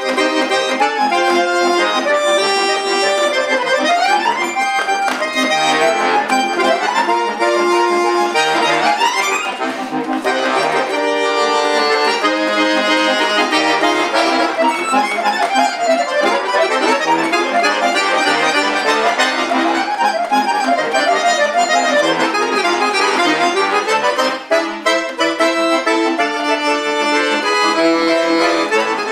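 Chromatic button accordion playing: held chords and melody notes, with several quick rising and falling runs.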